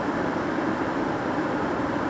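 Kettle heating water: a steady rushing noise, with no whistle.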